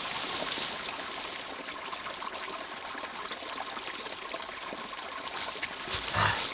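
Small stream running steadily with a trickling, pouring sound. There is a brief louder sound about six seconds in.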